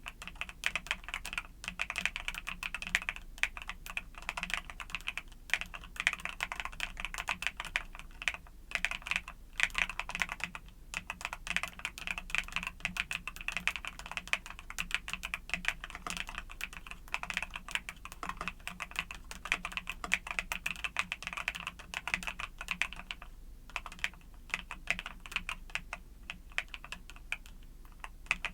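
Mechanical keyboard fitted with YUNZII Cocoa Cream switches being typed on, a rapid, continuous stream of keystroke clacks broken by a few short pauses.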